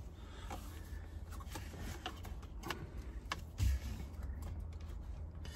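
Faint handling noises as hands press an aluminum paddle-shifter cover onto a Corvette C7's steering-wheel paddle: scattered light clicks and rubbing, with one dull thump about three and a half seconds in.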